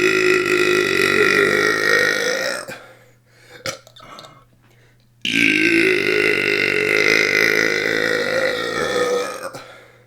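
A person belching on purpose in long, drawn-out burps: one already going ends about two and a half seconds in, then after a short click a second burp of about four seconds starts midway and trails off near the end.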